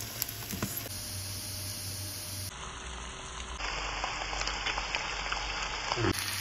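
Sliced onions, potatoes and cubes of liver sizzling as they fry in a nonstick frying pan, with many small crackles.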